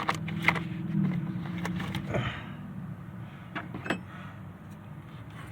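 Hand wrenches working on a stuck exhaust manifold stud: a few sharp clicks and knocks of tool on metal, one about half a second in and another about four seconds in, over a steady low hum that fades about two seconds in.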